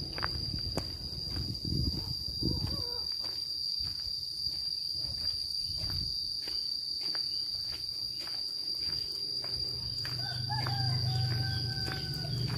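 A steady, high insect drone with a rooster crowing once near the end. Soft, regular footsteps on a dirt path run through most of it.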